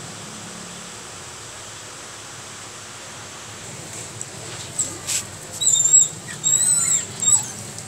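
A puppy whining in a run of high, thin squeaks that bend in pitch and break off every fraction of a second, starting about five seconds in, after a few faint clicks. A steady low hum runs underneath.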